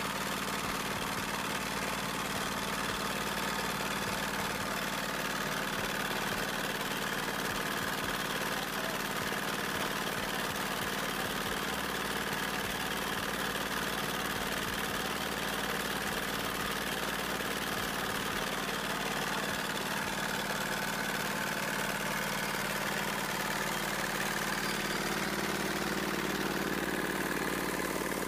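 An engine running steadily: a constant drone that does not change.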